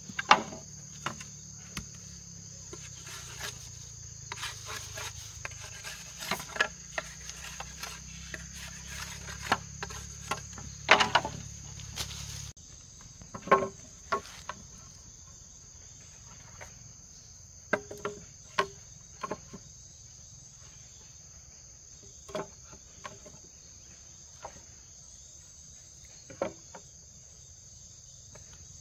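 Hollow bamboo poles knocking and clattering as they are set down side by side on a log frame, a few sharp knocks standing out among lighter clicks. A steady high-pitched insect drone runs underneath.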